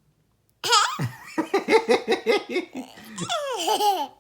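Young child giggling in a run of quick bursts, starting suddenly about half a second in and ending in a longer high laugh that slides down in pitch.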